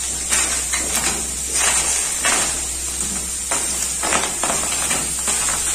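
Steady sizzling with frequent crackles of food cooking on a gas stove: small pieces of beef steak frying in hot oil in a pot, with tomatoes, onion and garlic roasting on a comal.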